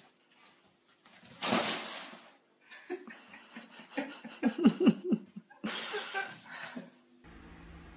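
A person laughing in a string of short bursts about halfway through, between two brief loud bursts of rustling noise.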